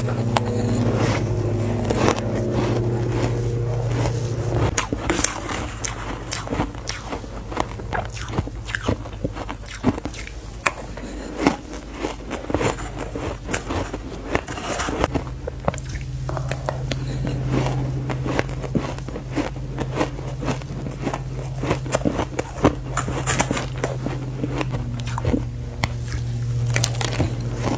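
Close-up crunching of crumbly purple coloured ice being bitten and chewed: dense, irregular crisp crunches. A low steady hum sits underneath for the first few seconds and again through the second half.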